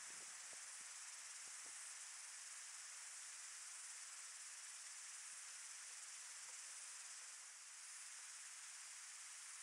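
Faint, steady, high-pitched insect chorus droning without a break.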